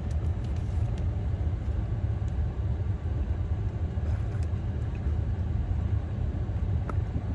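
Steady low background rumble with faint, scattered clicks of chewing.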